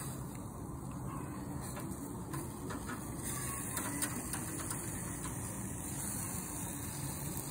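Steady hiss of tundra swan breast cooking on a gas grill, with a few light clicks of metal tongs against the grill grate as the meat is turned.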